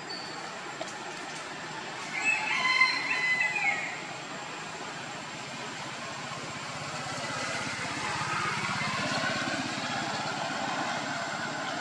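A single loud, pitched animal call lasting about a second and a half, starting about two seconds in, over steady outdoor background noise that swells slightly in the second half.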